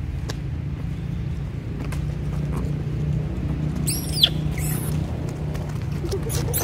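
Macaques scuffling, with a young monkey giving a shrill squeal that rises and falls about four seconds in and another high call near the end, over a steady low rumble.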